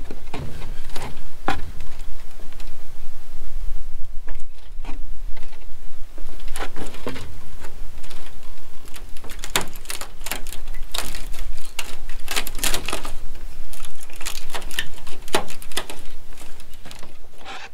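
Irregular clicks, taps and rattles of a plastic greenhouse roof panel being worked back into its metal frame, busiest in the second half.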